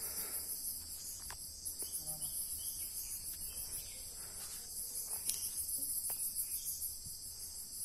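Steady, shrill chorus of insects in the forest trees, pulsing rapidly, with a few faint ticks over it.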